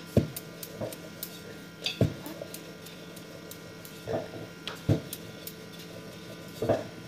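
A wooden rolling pin rolling out a small disc of dough on a wooden board, with irregular soft knocks as the pin strikes and rolls over the board, over a faint steady hum.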